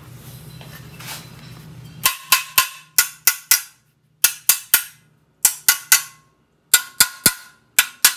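Sharp metal impacts with a short ring on a freshly welded steel accelerator bracket on a VW Bus pedal panel, struck again and again in quick groups of two or three to test the weld. A low steady hum comes before them for about the first two seconds.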